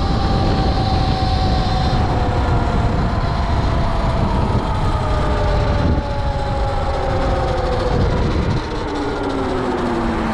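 DIY electric motorcycle's motor whining and falling steadily in pitch as the bike slows, dropping faster near the end. Heavy wind rush and road rumble run underneath.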